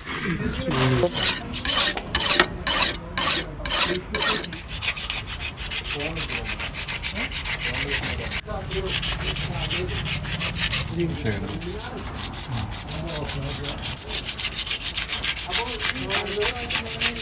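Knife scraping the scales off a large fish: about seven long strokes, roughly two a second, then a fast, steady run of short scraping strokes.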